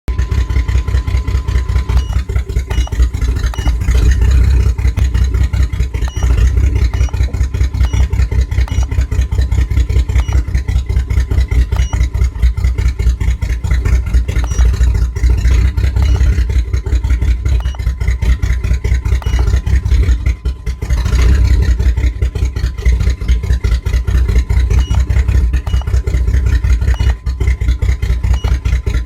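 1997 GMC Jimmy's 4.3-litre V6 running with a misfire.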